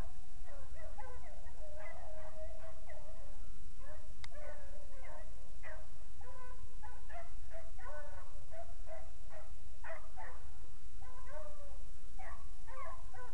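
A pack of beagles baying while running a rabbit's track, many voices overlapping in continuous cry, over a steady low rumble.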